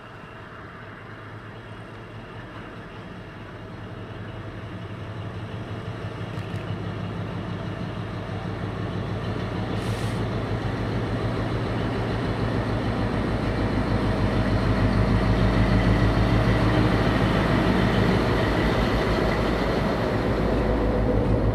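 Class 60 diesel locomotive with its eight-cylinder Mirrlees engine, hauling a loaded rake of oil tank wagons, its engine note droning steadily and growing louder as it approaches and passes close by. Near the end the tank wagons roll past with an even rhythmic rumble.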